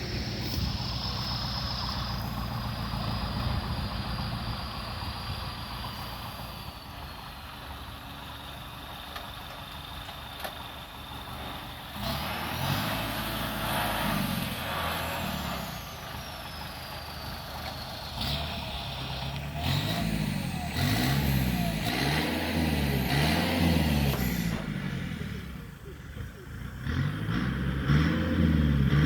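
Kubota farm machine's diesel engine running, its pitch repeatedly rising and falling in the second half as it is revved up and eased off. A thin high whine slides down in pitch over the first several seconds.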